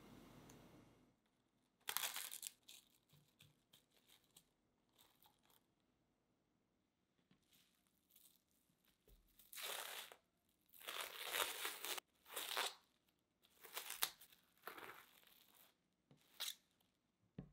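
Plastic cling film crinkling and rustling in short bursts as it is handled, pulled and spread flat on a table, with a quiet stretch before the main run of bursts in the second half.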